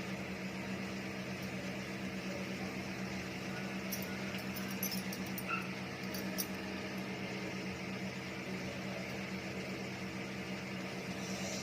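Steady mechanical hum, like a running fan or motor, with a few faint light clicks between about four and six and a half seconds in.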